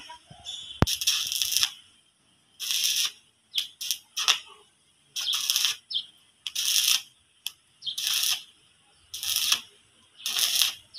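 Electric arc welding on a steel gate frame: the arc crackles in short bursts, roughly one a second, with brief silences between, as the welder lays tack welds.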